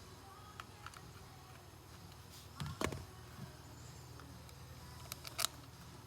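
Screws being driven into the housing of a Fuller air shift knob during reassembly: faint scattered clicks and scrapes of tool on metal, with a louder short clatter just under three seconds in.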